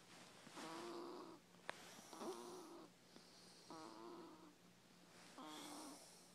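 Faint snoring: a run of short, pitched snores, one every second or two, with quieter breaths between.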